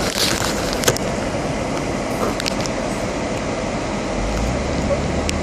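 Steady rush of noise inside a car cabin, the sound of its ventilation fan and running car, with a few light clicks and bumps from the phone being handled. A low rumble joins about four seconds in.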